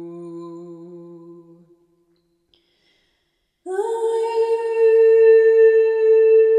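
A woman's hummed vocal tone fades out in the first couple of seconds, followed by a short silence. Then, about two-thirds of the way in, a singing bowl starts ringing suddenly and loudly. It holds one steady tone with bright overtones.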